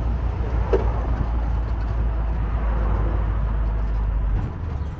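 Steady low rumble of a moving vehicle's engine and road noise, which drops off sharply about four and a half seconds in.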